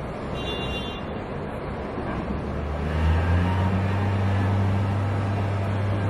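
Heavy diesel engine of a Kalmar log stacker revving up about two seconds in under load, then holding a steady low drone.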